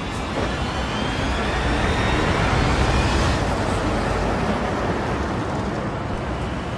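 Road traffic on a steep uphill road: a bus, a box truck and cars passing, a steady rumble of engines and tyres that swells a little about halfway through.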